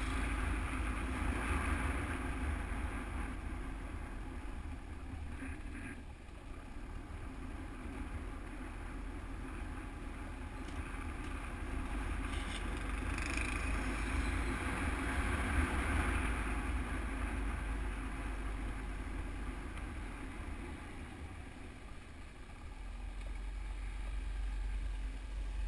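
Enduro motorcycle riding on an off-road track, its engine running under heavy wind buffeting on a bike- or helmet-mounted GoPro microphone. The noise swells and eases with no break.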